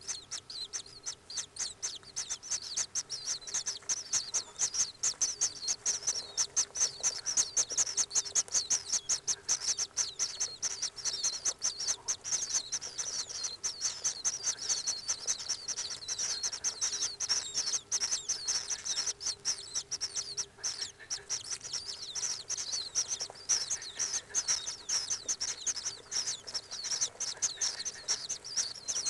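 Common kingfisher nestlings in the nest chamber giving a rapid, unbroken run of high chirping begging calls, with a faint steady hum underneath.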